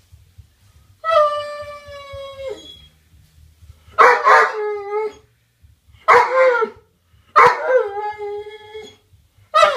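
A Doberman howling: four drawn-out howls, the first long and held steady before dropping off, the later ones shorter and wavering, with a fifth starting near the end. These are the dog's fearful, uneasy calls at balloons it is scared of.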